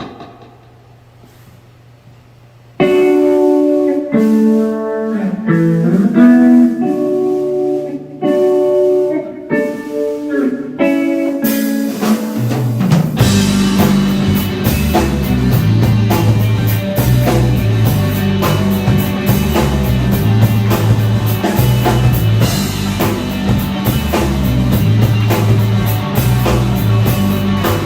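Live rock band: after a short pause with a faint steady hum, a lone guitar picks out a melodic intro of separate notes, then drums and bass come in about twelve seconds in and the full band plays on.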